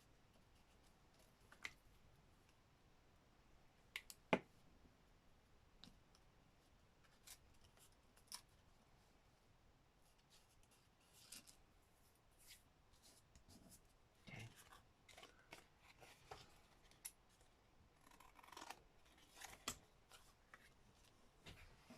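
Scissors snipping paper in short, scattered cuts, quiet overall, with a sharper click about four seconds in and busier runs of snips later on.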